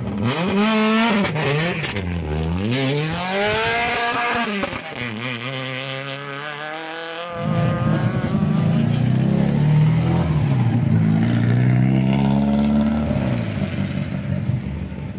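Rally car engines revving as the cars pull away on a wet road, the pitch climbing and dropping with the revs and gear changes. About seven seconds in, another car's engine cuts in louder, runs on, and fades near the end.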